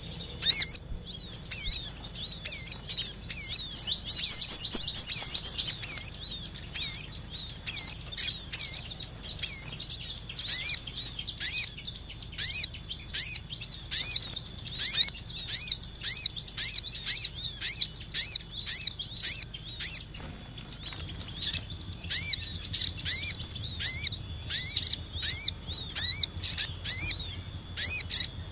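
Small songbirds chirping in fast, excited bouts of short high notes that each drop quickly in pitch, several a second, with brief pauses between bouts. This is a bird-lure call recording, used to draw wild birds in.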